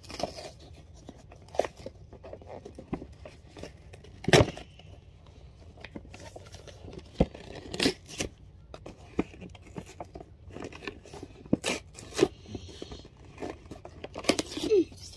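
Cardboard packaging of an action figure box being torn open by hand: scattered sharp tearing and crackling, the loudest rip about four seconds in.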